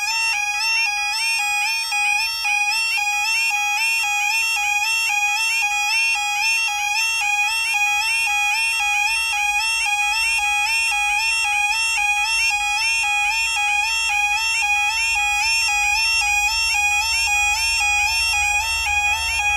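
Two very loud electronic level-crossing alarms sounding together, a fast, steadily repeating warbling tone. In the second half the low rumble of an approaching Class 66 diesel locomotive rises beneath it.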